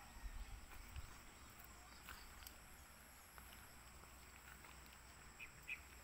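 Near silence: faint outdoor ambience with a low rumble, and two faint short bird chirps close together near the end.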